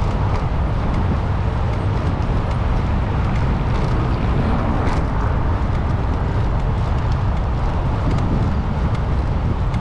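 Steady low rumble of a car driving: road and engine noise, even in level throughout.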